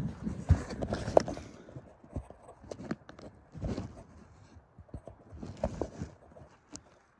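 Footsteps crunching through deep snow, a slow uneven step about once a second, busier in the first second or so.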